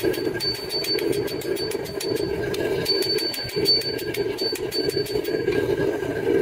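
A hand hammer striking red-hot leaf spring steel on an anvil in quick blows, several a second, the anvil ringing high after many of them. A steady roar runs underneath.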